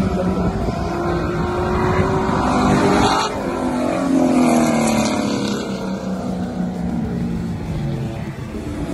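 Race car engines at high revs passing at speed down the straight. The note climbs as a car approaches, then drops in pitch as it goes by about three seconds in, with further engine notes from following cars.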